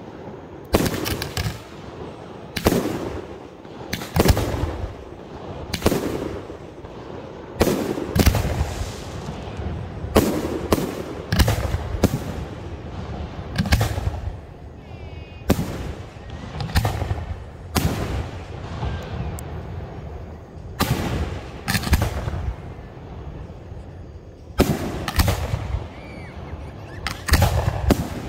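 Aerial fireworks launching and bursting: a long run of sharp bangs, roughly one a second, some coming in quick pairs.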